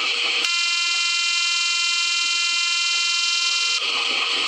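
Half a second of hissing noise gives way to a steady, buzzing horn tone with many overtones. The hiss breaks in briefly near the end before the tone resumes.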